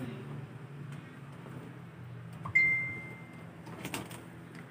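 A sudden high ringing note at one steady pitch a little over halfway through, fading over about a second, like a small object struck or clinking. A steady low hum runs underneath, and a few faint clicks come near the end.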